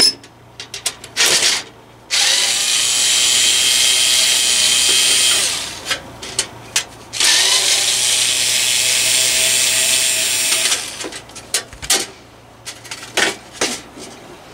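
Cordless electric screwdriver backing out the screws that hold a heater's thermal overload: two steady motor runs of about three seconds each, with short clicks and knocks of handling between them and after.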